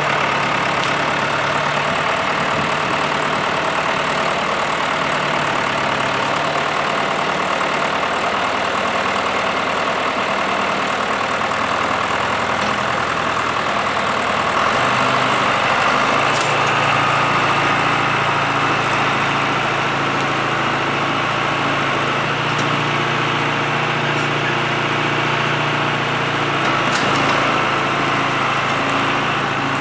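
John Deere 2750 tractor's diesel engine running steadily, its engine note shifting about halfway through.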